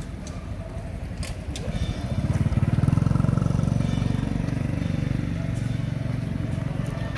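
A motorbike engine running as it approaches and passes along the road, swelling about two seconds in, loudest around three seconds in, then fading slowly.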